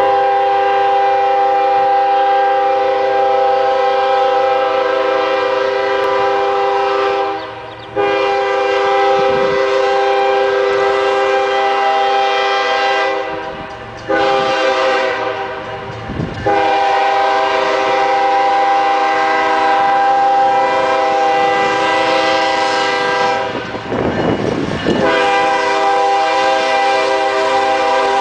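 Air horn of Union Pacific GE Evolution-series locomotive 7639, sounding several notes at once in long blasts separated by short breaks as the train approaches.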